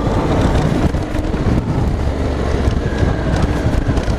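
Heavy wind buffeting the microphone, loud and steady, over a motorcycle engine running underneath while riding on a dirt track.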